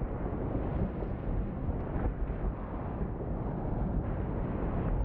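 Erupting volcanic cone pouring out lava: a steady, uneven low rumble with no separate bangs.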